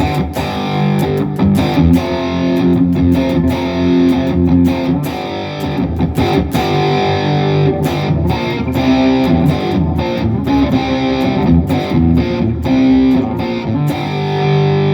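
Electric guitar played through a multi-effects pedalboard preset into a full-range (FRFR) amplifier: picked and strummed chords with frequent sharp attacks, some left to ring out.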